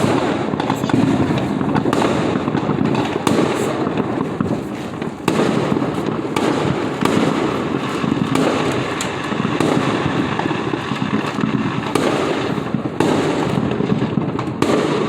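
Dense, continuous fireworks barrage: overlapping bangs and crackling, with sharp louder bangs every second or two.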